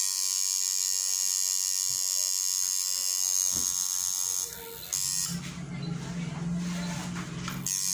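Electric tattoo machine running with a steady high-pitched whine. About five seconds in the whine gives way to a lower buzz for a couple of seconds, and it returns near the end.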